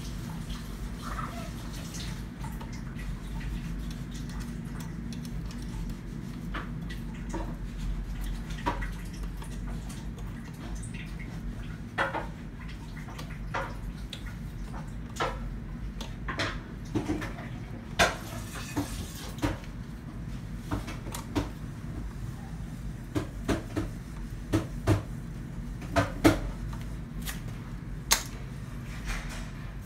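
Scattered sharp metal clicks and clinks from an Allen key and steel chainring bolts on an aluminium bicycle crank spider. They come more often and louder in the second half, over a steady low hum.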